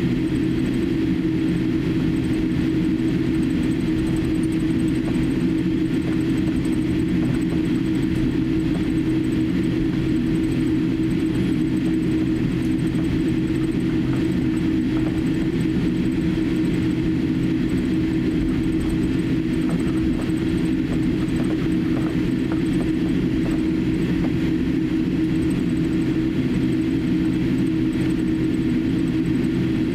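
Cabin noise of a Boeing 787-8 taxiing, its GEnx engines at taxi power: a steady hum with a strong, steady low tone, heard inside the cabin.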